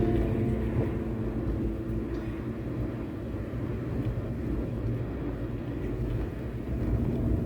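Steady low rumbling noise, with the last held notes of guitar music fading out in the first second.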